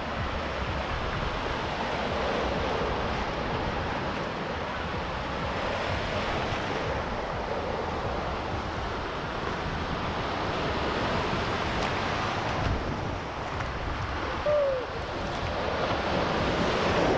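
Ocean surf: waves breaking and washing up the shallows in a steady rush. A wave breaks close by and grows louder near the end.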